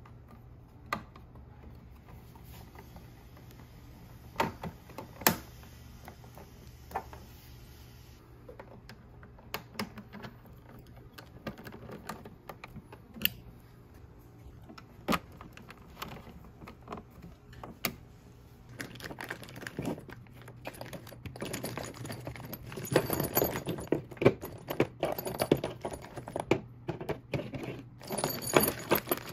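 Small metal hardware being handled: scattered clicks and taps as the cover panel and its bolts are fitted with a hand tool, then, from about two-thirds of the way through, a denser jingling and rustling of bolts, washers and spacers being sorted out of a plastic bag. A faint low hum runs underneath.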